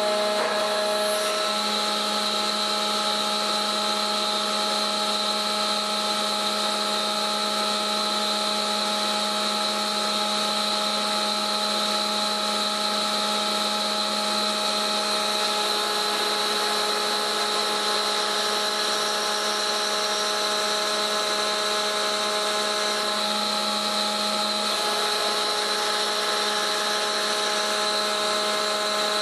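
A machine running steadily with an even whine made of several steady tones, holding the same level throughout.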